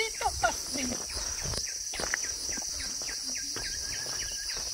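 Steady high-pitched drone of forest insects, with a bird giving a quick run of short repeated chirps in the second half.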